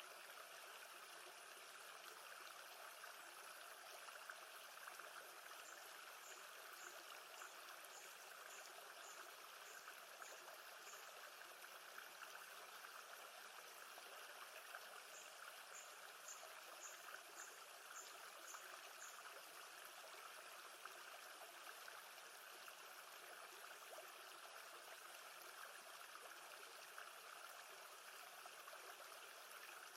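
Faint, steady sound of gentle lake water. Two runs of high, evenly spaced chirps, about two a second, come through it in the first part.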